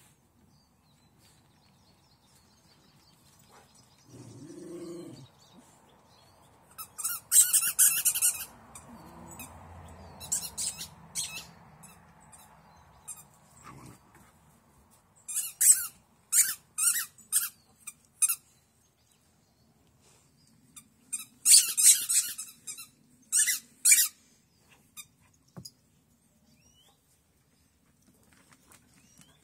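Dogs at play with sharp, high-pitched squeaks coming in quick runs of several, in about four clusters, and a short low sound about four seconds in.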